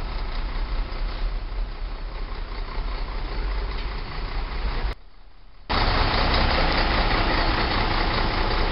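A large vehicle's diesel engine idling steadily, a low rumble with traffic-like noise over it. About five seconds in the sound cuts out for under a second, then comes back louder.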